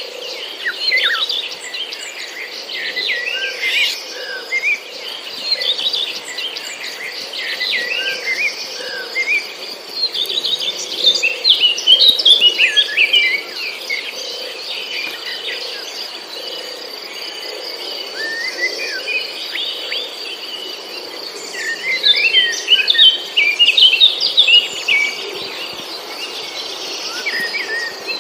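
Small birds chirping and twittering in quick, overlapping flurries, louder about halfway through and again near the end, over a steady high-pitched insect trill.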